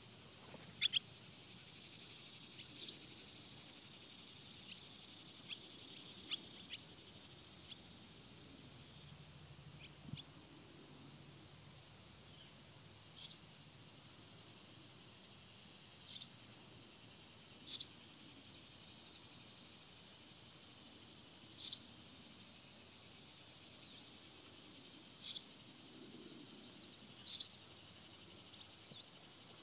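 Barn swallows calling in flight: short, high chirps every two to four seconds, about a dozen in all, the loudest about a second in. Under them runs a thin, steady high-pitched tone that drops in and out.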